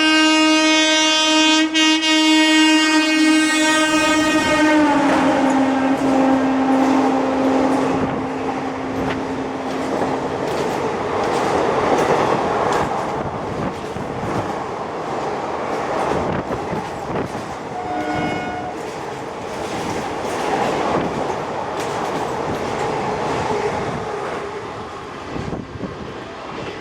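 WAP4 electric locomotive running through at speed, its horn blowing one long blast that drops in pitch about five seconds in and fades out around ten seconds. The coaches then rush past with a rapid clickety-clack of wheels over rail joints, and there is a short second horn note about eighteen seconds in.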